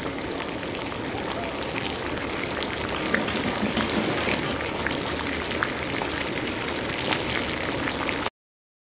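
Stovetop aluminium moka pot gurgling and sputtering as the coffee boils up, a steady hiss full of small pops and crackles that cuts off suddenly just before the end.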